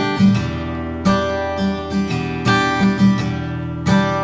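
Background music: a strummed acoustic guitar playing a steady, rhythmic pattern.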